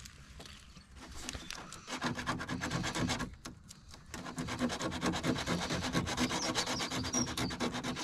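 Hand sanding a wet fibreglass front bumper with a small piece of sandpaper, in quick back-and-forth strokes. The strokes start about two seconds in, pause briefly, then run on steadily. This is the prep sanding of filler and edges that a sanding block can't reach, before primer.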